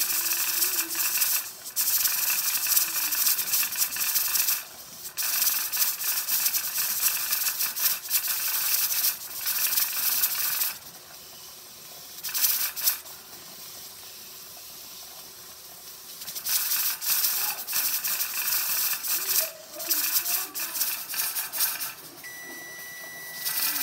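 Weighted pressure regulator on a stovetop pressure canner rocking and hissing as steam vents, a fast rattling hiss that stops twice for a few seconds and then picks back up: the canner is holding about 10 pounds of pressure. Near the end a long electronic beep sounds as the timer goes off.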